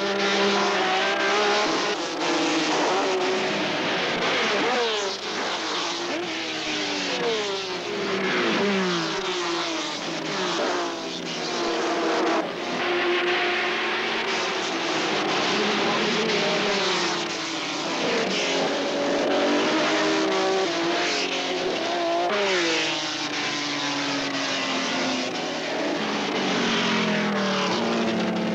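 Several racing car engines at high revs as cars run past on a circuit. Their pitch climbs again and again and falls back at each gear change, the engine notes overlapping.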